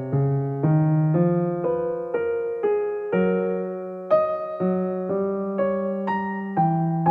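Background music: an electric piano playing a slow melody over chords, a new note struck about every half second and dying away between strikes.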